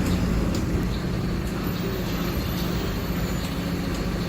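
Mercedes-Benz OF-1721 Bluetec 5 bus's four-cylinder diesel engine running at a steady pitch, a low even drone.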